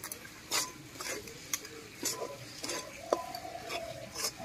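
Flat metal spatula scraping and knocking against a steel wok while stirring a thick grated-potato, semolina and rice-flour mixture, in strokes about twice a second.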